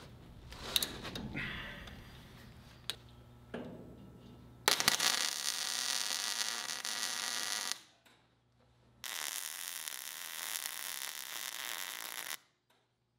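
A few light knocks and handling of steel, then a MIG welder laying two welds on steel. Each is a steady sizzling hiss of about three seconds, with a short pause between them.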